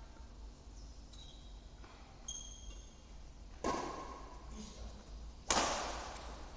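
Badminton rackets striking a shuttlecock during a rally: two sharp hits about two seconds apart, the second the loudest, each echoing in a large hall, with a fainter tap near the start and the end.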